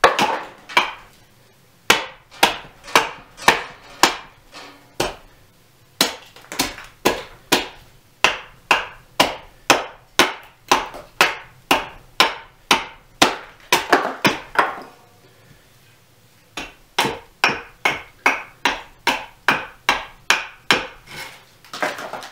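Hultafors axe hewing a block of green birch: sharp, repeated strikes of the blade biting into the wood, about two a second, in runs broken by short pauses.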